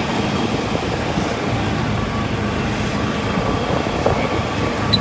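Steady rumble and rattle of an open golf cart driving along a rough road, with some wind.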